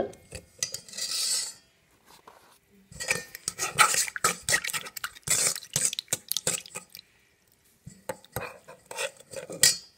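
Metal spoon stirring a little yeast liquid in a stainless steel bowl, with quick runs of clinks and scrapes against the bowl and a pause of about a second near the end. A brief soft hiss comes about a second in.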